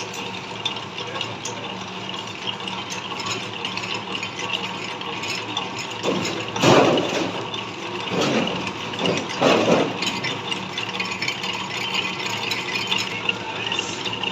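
Metal lathe running with a steady mechanical rattle and hum as it turns a welded workpiece, with a few louder grinding bursts about six and nine seconds in.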